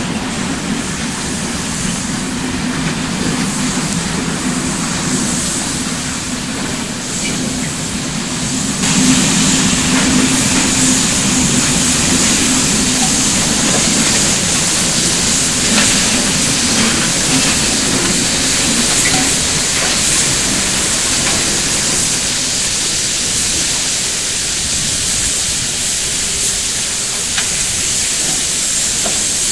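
Steam locomotive working slowly with a train of freight wagons, with a steady hiss of escaping steam that gets louder about nine seconds in.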